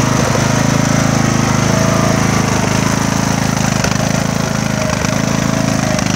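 Craftsman riding mower's engine running steadily, with a few brief irregular beats in its rhythm: still misfiring a bit.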